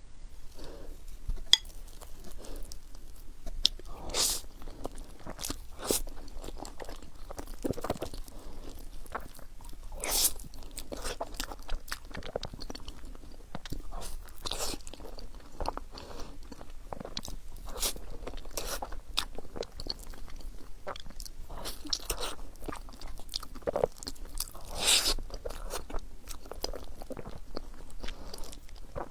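Close-up sounds of someone eating soft bread with a melting filling: bites and steady chewing, with irregular mouth clicks and crackles and a few louder bites along the way.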